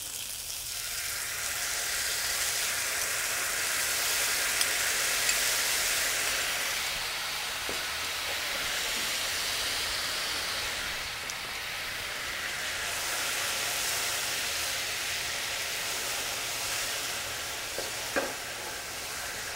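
Teriyaki sauce sizzling and bubbling around a seared chicken piece in a hot nonstick frying pan as it reduces to a glaze. The sizzle builds about a second in as the sauce hits the pan, with a faint tap near the end as chopsticks turn the chicken.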